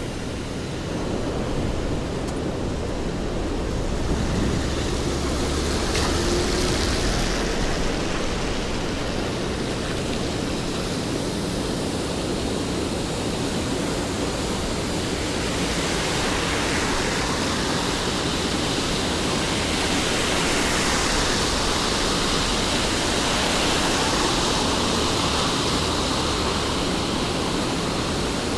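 Steady rainfall on a city street: a continuous, even hiss, with a single sharp tick about six seconds in, the hiss growing brighter in its upper range about halfway through.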